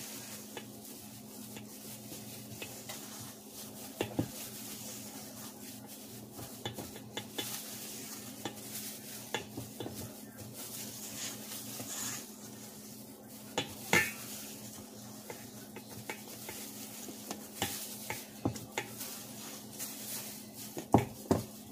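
A spatula stirring and folding thick bread dough in a stainless steel mixing bowl: irregular scraping with small clicks and knocks against the bowl, a few louder ones about 4, 14 and 21 seconds in, over a faint steady hum.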